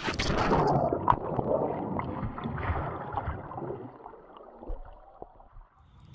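A sudden splash into deep river water, then muffled churning and gurgling of water around the submerged camera, with a knock about a second in, dying away over about five seconds.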